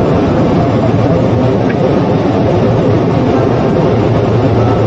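Steady flight-deck noise in a Boeing 747-400 cockpit in flight: a constant rush of airflow and engine noise with no breaks.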